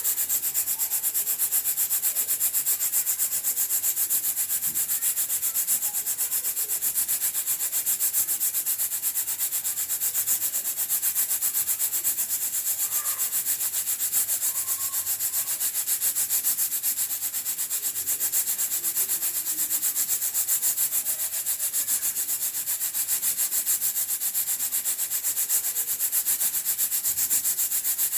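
Hawkins pressure cooker venting steam past its weighted pressure regulator: a steady, high hiss with a fast, even flutter as the weight lifts and drops on the vent pipe.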